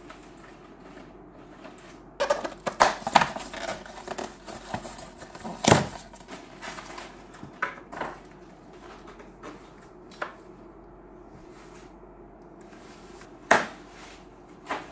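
Unpacking noise: styrofoam packing blocks and plastic wrap being pulled off and handled, with clattering knocks. A cluster comes about two to three seconds in, the loudest knock near six seconds, and another sharp one about thirteen and a half seconds in.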